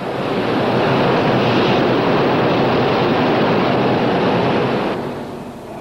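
Rushing water and spray thrown up by a ship's bow cutting through the sea. It swells in the first second, holds steady, and falls away about five seconds in.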